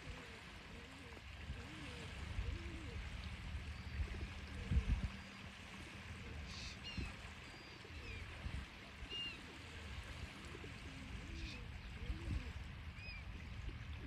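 Rock pigeons cooing again and again, short low rising-and-falling coos, while small birds give scattered short high chirps. Underneath runs a steady low rumble, with a few low thumps.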